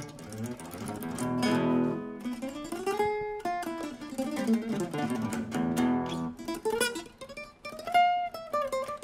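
Nylon-string acoustic guitar played solo: a fingerpicked melody with strummed chords ringing out about a second and a half in and again around six seconds, and single notes that slide up and down in pitch.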